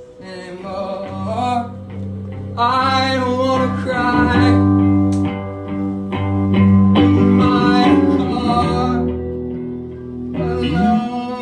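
Indie rock band playing live: electric guitars and bass under a sung vocal line. The music starts quietly and swells to full volume within the first few seconds.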